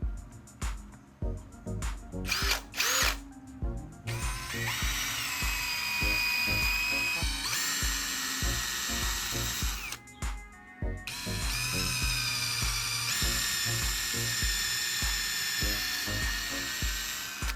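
Electric drill running in two long stretches, several seconds each, its pitch rising as it spins up and then holding steady. A short brief burst comes first. Background music with a steady beat plays throughout.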